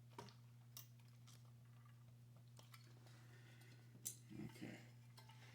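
Near silence with a steady low hum and a few faint clicks of small metal parts being handled, with a short cluster of clicks and scrapes about four seconds in, as screws on the water heater are worked.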